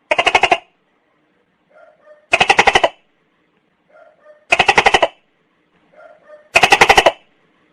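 Tokay gecko calling: four loud, rattling syllables about two seconds apart, each a half-second run of rapid pulses, with a faint short note just before each one.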